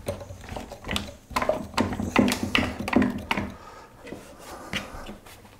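Irregular wooden knocks, clicks and rubbing as the ratchet band clamps around a freshly glued wooden speaker cabinet are tightened and handled.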